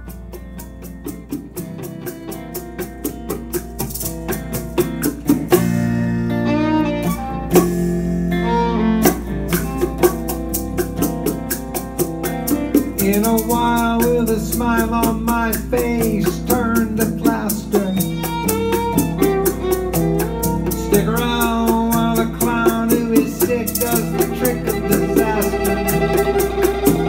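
Live acoustic string-band music: fiddle over strummed acoustic guitar, with a rattling hand-percussion beat. It starts quietly and fills out into a full, steady rhythm after a few seconds.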